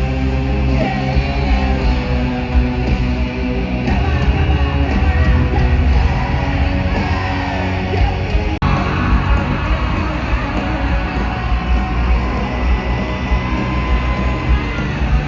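Loud rock music with shouted vocals and electric guitar, with a brief dropout about eight and a half seconds in.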